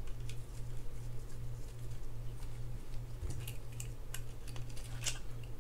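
Scattered light clicks and ticks of small metal reel parts being handled as a nut is threaded onto a Penn Battle III 6000 spinning reel, over a steady low hum.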